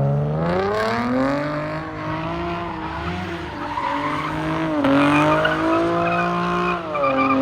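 Chevrolet Camaro's engine revving hard, climbing in pitch over the first couple of seconds and then held high with two short dips, about five and seven seconds in, while the tires squeal in a burnout or slide.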